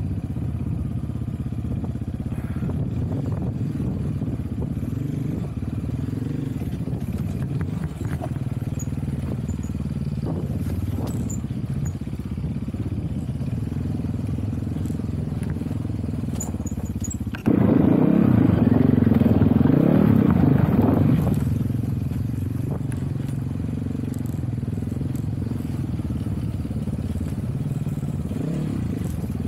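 GPX Moto FSE300R dirt bike engine running steadily while riding. A little past halfway it suddenly gets louder for about four seconds, then eases back down.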